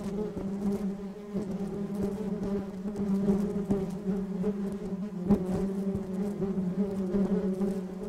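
Honeybees buzzing on the comb: a steady, even hum of many bees, with a few light ticks, the sharpest about five seconds in.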